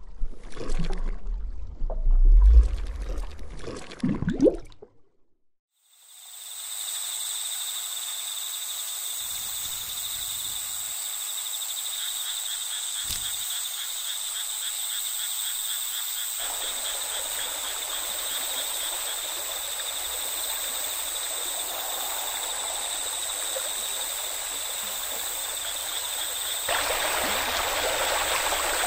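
Nature ambience of running water with a steady, high-pitched trilling chorus of frogs or insects over it. The water grows louder about halfway through and again near the end. The first few seconds are different: several loud, irregular sounds with a deep rumble, then about a second of silence before the ambience starts.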